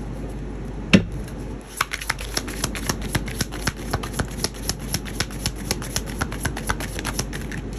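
A deck of cards being shuffled by hand: one sharp knock about a second in, then a rapid run of card clicks, about six a second, until near the end.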